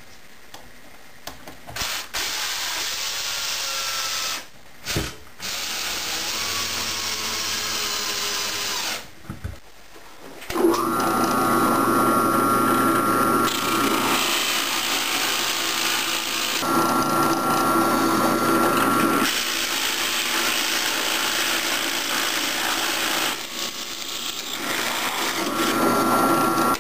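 Drill press running, with a Forstner bit boring large holes through plywood: a steady motor hum under cutting noise that swells and eases several times as hole after hole is bored. In the first part, before it, a separate power tool runs for several seconds with short breaks.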